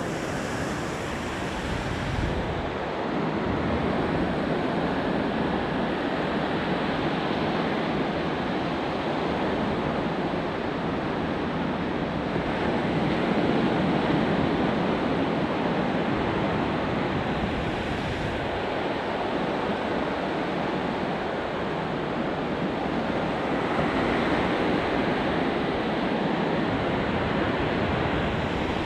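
Ocean surf breaking and washing up a sandy beach: a steady rush that swells and eases slowly, with some wind.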